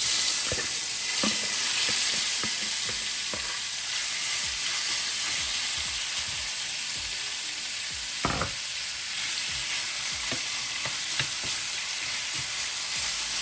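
Cajun-seasoned shrimp going into hot avocado oil in a skillet: the sizzle starts all at once and keeps up steadily, with scattered small pops and spits. A dull knock about eight seconds in.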